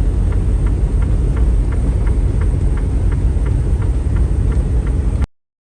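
Steady low rumble of a semi-truck heard from inside the cab while it rolls downhill, with a faint regular ticking about three times a second. The sound cuts off suddenly shortly before the end.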